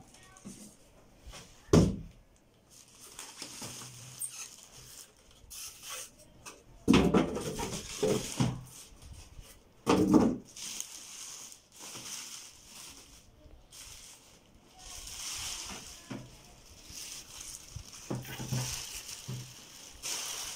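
Clear plastic wrapping rustling and crinkling as a printer is unwrapped by hand. A sharp knock comes about two seconds in, and heavier thumps come around seven and ten seconds in as the printer is handled.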